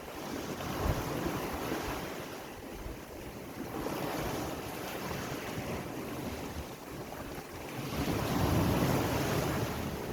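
Sea waves washing in, with wind buffeting the microphone; a bigger wave swells up loudest near the end.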